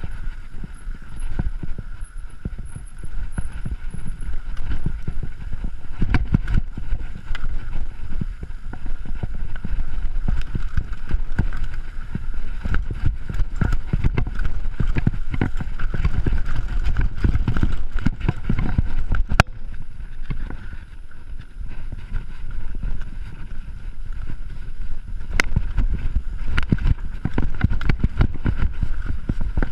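Mountain bike riding fast down a dirt downhill trail: a steady rumble of the tyres over dirt and rocks, with a constant clatter of knocks and rattles from the bike over bumps. Two sharp clicks stand out, one past the middle and one later.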